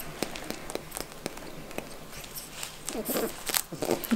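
Pet rabbit chewing banana: quick, regular clicks of its teeth, about four a second.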